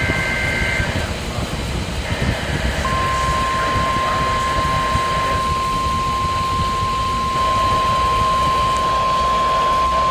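NOAA Weather Radio receiver sending an emergency alert. The two-pitch warble of the digital SAME header data burst ends just under a second in, and a fainter burst follows. About three seconds in, the steady 1050 Hz warning alarm tone begins and holds, over radio static. The alarm tone signals that a warning is being issued.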